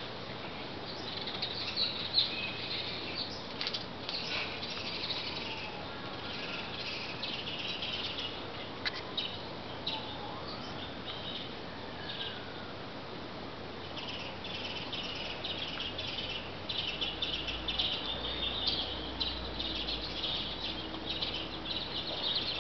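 Birds chirping and twittering continuously in dense high chirps, with a few faint sliding notes.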